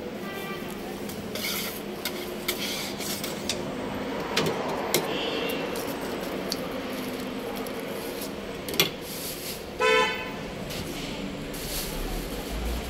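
Food-stall ambience with a steady background hum and scattered clicks and scrapes of a metal spatula working on a jianbing griddle. About ten seconds in, a vehicle horn gives one short, loud honk.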